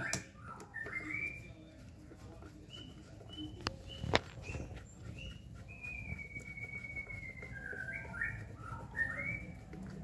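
A string of short whistled chirps and notes, one held steady for about two seconds in the middle, with two sharp clicks about four seconds in.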